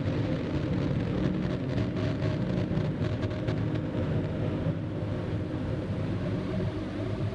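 Harsh noise drone: electronic music tracks corrupted through a chain of effects pedals into a Boss RC-505 looper. A dense, steady low drone of several held low tones under a hissing, fluttering wash.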